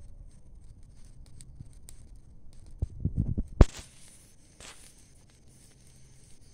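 Burning pile of dry garden leaves crackling with faint scattered pops. About three seconds in comes a short run of low thumps ending in one sharp knock, the loudest sound here, followed by a steady hiss.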